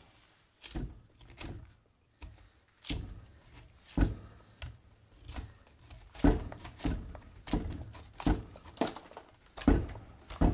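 Knife strokes cutting and peeling thick bark off a green black walnut branch: a run of short, sharp cuts and tearing snaps at an uneven pace, the loudest about four, six and nine and a half seconds in.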